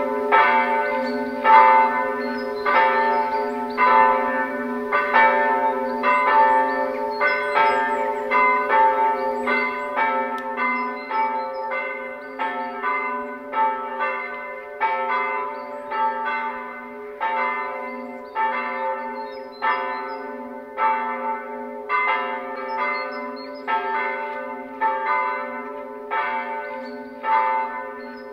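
Church bells ringing, several bells struck over and over at about a stroke every half second, their tones humming on and overlapping; they start suddenly. The bells are ringing in a Sunday service.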